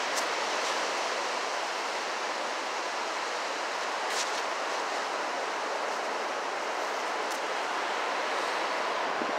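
Steady hiss of ocean surf breaking along a sandy beach.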